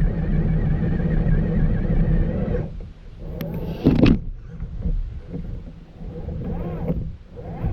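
Cross RC AT4 EMO crawler's electric motor and geared drivetrain whining under throttle, the pitch wavering and gliding up and down, with a dip and a sharp surge about four seconds in.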